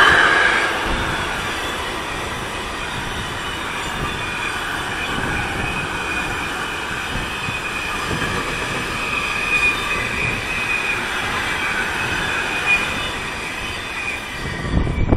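Freight train of container and semi-trailer wagons rolling past close by, a steady rumble of wheels on rail with a continuous high-pitched squeal from the wheels. The sound eases near the end as the last wagon goes by.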